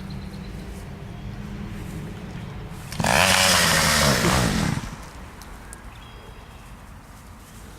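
Gas chainsaw running with a low steady hum, then revved loudly for nearly two seconds about three seconds in, its pitch falling as it winds back down.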